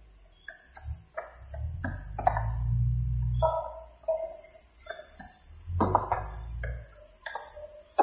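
Repeated metal clicks and short clinks from a hand-lever strapping tensioner being pumped to tighten plastic strapping around a bundle of sawn boards, with music underneath.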